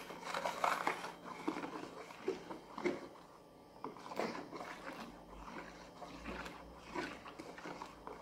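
A plastic stick stirring foamy dissolved washing-powder solution in a plastic basin, with soft irregular scrapes and taps. From about halfway, a thin stream of room-temperature water is poured slowly into the foam while the stirring goes on, diluting the mix into liquid soap.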